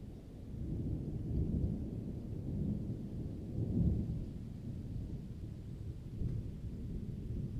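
Low, continuous rumble that swells and eases, loudest about four seconds in.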